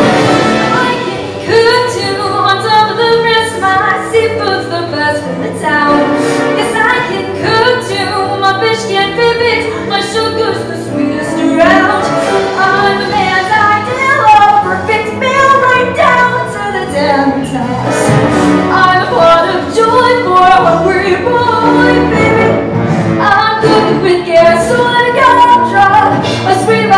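A large mixed show choir singing an up-tempo number over instrumental accompaniment, the women's voices prominent.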